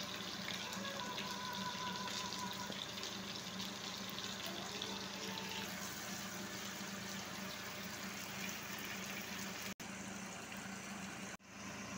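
Chicken, bagoong and vegetables sautéing in a frying pan: a steady sizzle over a low hum, breaking off briefly twice near the end.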